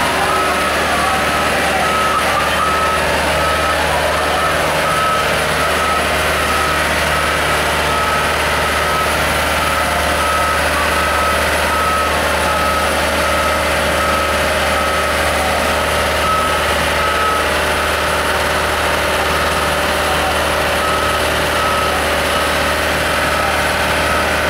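Heavy police water-cannon truck running, its engine a steady low hum under a reversing alarm beeping in an even on-off pattern. The beeping stops for a few seconds about two-thirds of the way through, then starts again.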